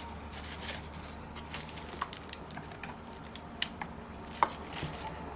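Scattered light clicks and taps from handling small metal parts of a model four-stroke glow engine, over a steady low hum.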